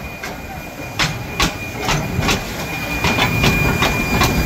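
Steam locomotive heard close up: a dense low running noise with a thin steady high whine and irregular sharp metallic clanks, getting louder in the second half.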